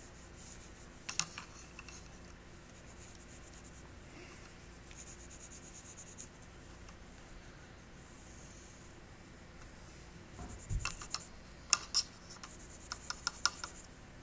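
Watercolour pencil scratching and rubbing on paper, faint, with a run of sharp clicks and a low knock in the last few seconds.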